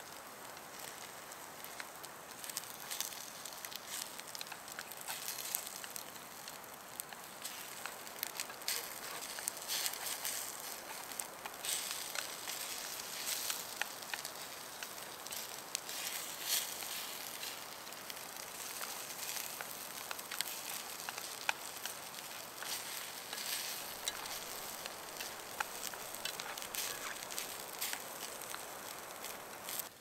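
Campfire crackling, a steady hiss with a dense run of small pops and snaps.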